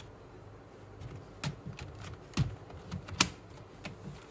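Several sharp plastic clicks and knocks as a laptop SO-DIMM RAM module is pushed into its memory slot and the laptop's plastic base is handled, the loudest click about three seconds in.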